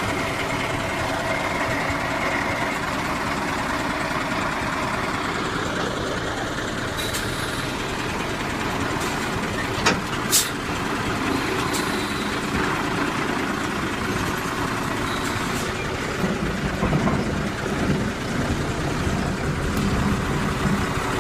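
A truck engine running steadily just after starting. There are two short sharp sounds about ten seconds in.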